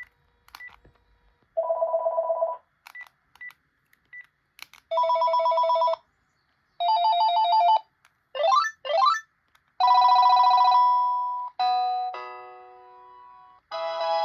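Panasonic KX-TG7641 cordless phone playing its ringtones one after another: several fast warbling electronic trills, two rising sweeps, a long tone that fades away, a run of falling chime notes, and a melody ringtone starting near the end. Short faint beeps sound between the first few rings.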